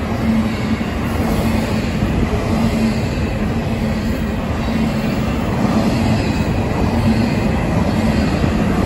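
Freight train of double-stack intermodal well cars rolling past: a steady rumble of steel wheels on rail, with a faint low tone that comes and goes.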